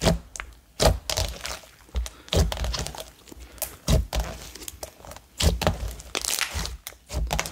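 Thick, glossy ultra-thick slime being poked and squeezed by fingers, giving a string of irregular sharp pops between soft squishing.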